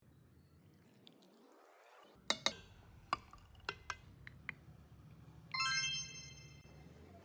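Several sharp clinks of a utensil against dishware, two close together and then scattered ones over about two seconds. Then a bright bell-like ding that rings and fades.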